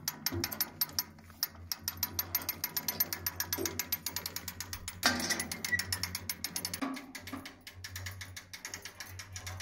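Hand-cranked ratchet strap winch being wound to lift the wood chipper's heavy discharge pipe, its pawl clicking rapidly and evenly over the ratchet gear.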